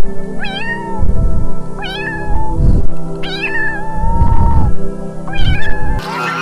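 A domestic cat meowing four times, the third meow the longest, over background music.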